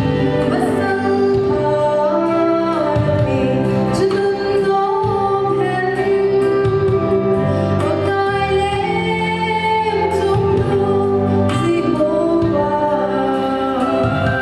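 A woman's solo voice singing a slow, emotive song through a microphone and PA, over sustained instrumental backing.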